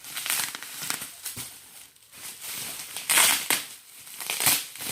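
Plastic packaging crinkling and rustling as a new bag is handled and unwrapped, in irregular bursts, loudest about three seconds in and again near the end.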